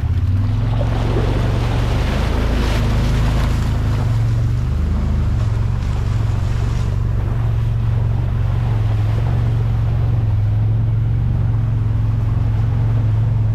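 Vehicle engine running steadily while driving through standing rainwater, with water splashing and hissing under the tyres, strongest in the first half.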